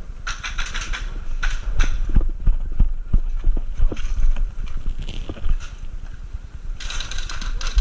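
A run of irregular knocks and thuds over a low rumble, with bursts of rustling just after the start and again near the end.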